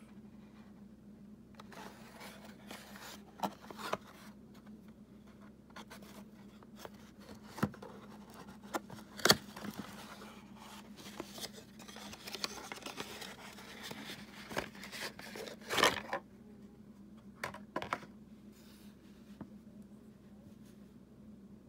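Cardboard ink-bottle box being handled and opened: irregular scraping and sliding of card with sharp taps and snaps, the loudest about nine and sixteen seconds in, as the glass bottle is slid out. After about eighteen seconds the handling stops and only a faint hum remains.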